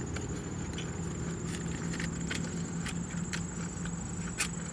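Chewing a mouthful of bacon cheeseburger: soft irregular wet clicks and smacks, over a steady low hum and a thin high steady whine.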